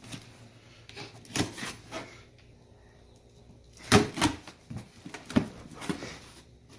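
Cardboard box being opened with a knife: packing tape slit and the flaps pulled open, with scattered knocks and rustles of cardboard. The sharpest, loudest knock comes about four seconds in.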